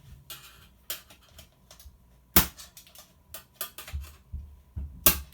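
Plastic part being pried off the metal frame of a Pioneer disc changer: a series of sharp clicks and snaps, with the loudest snap about two and a half seconds in and another near the end.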